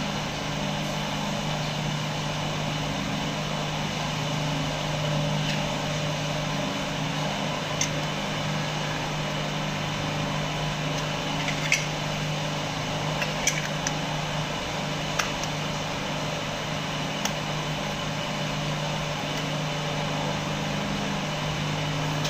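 Steady mechanical hum of a running household appliance, with a few short light clicks as lids are fitted onto kulfi moulds.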